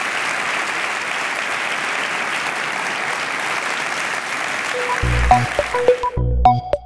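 Audience applauding steadily. About five seconds in, electronic music with a pulsing bass and short plucked notes comes in, and the applause cuts off about a second later.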